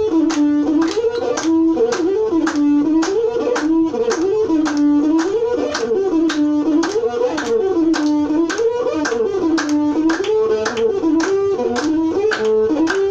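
Ethiopian azmari instrumental music: a masinko, the one-string bowed fiddle, plays a short melodic phrase over and over above a steady percussion beat.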